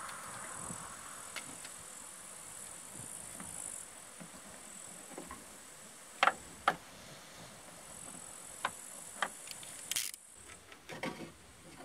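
Short, sharp metal clinks and knocks of a wrench and loosened fittings in a car's engine bay: two loud ones about six seconds in, then a scattering of lighter ones near the end, over a faint steady high hum.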